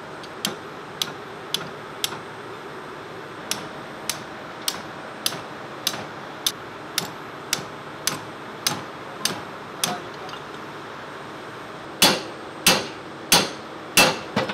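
Hammer striking a ring spanner to tighten a nut on a Mitsubishi Selfjector fuel oil purifier's shaft assembly: a steady run of light metal-on-metal taps about every 0.6 s, then, after a short pause, five much harder blows near the end.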